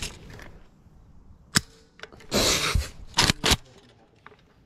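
AK-47 being loaded by hand, its magazine and action handled. There is a single click, then a scraping of metal lasting about half a second, then two sharp metallic clacks in quick succession.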